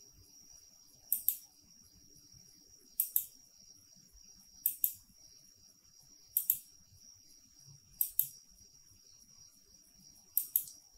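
Computer mouse clicking: six quick clicks, each heard as a close pair of snaps, spaced one to two seconds apart, with faint room tone between.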